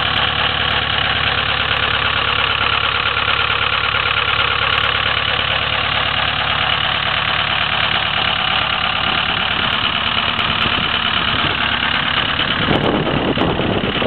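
Ford 6.0 L Powerstroke V8 turbodiesel running steadily at its raised cold-weather high idle, warming up after a cold start. Heard with the hood open. Near the end, rough wind noise on the microphone joins in.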